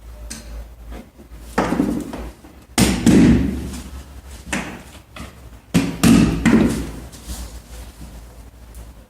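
Several heavy knocks and thumps from pipe-fitting work, the loudest about three seconds in, each trailing off briefly.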